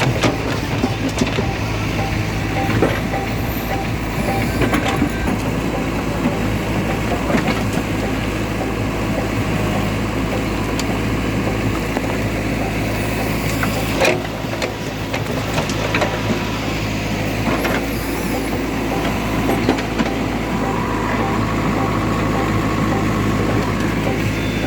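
Diesel engine of heavy earthmoving machinery running steadily, with a few sharp knocks and clatters over it.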